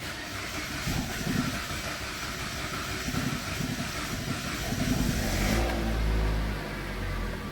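Mitsubishi Lancer X 2.0-litre four-cylinder engine cranked by the starter for about five seconds, slow to fire because its fuel system was emptied when the injectors were out. It then catches, flares up briefly and settles into a steady idle.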